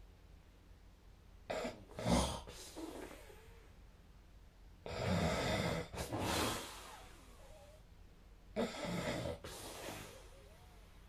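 A sleeping person snoring: three snoring breaths about three and a half seconds apart, the middle one the longest.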